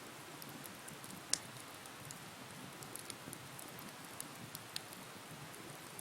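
Wood bonfire crackling: a steady hiss of burning with scattered sharp pops, the loudest about a second and a half in.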